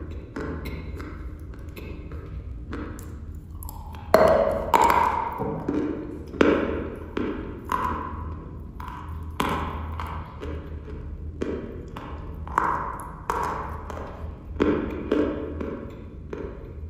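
Close-miked chewing of a dry chalk block: a run of sharp, crisp crunches at irregular intervals, about one or two a second, loudest a little after four seconds in.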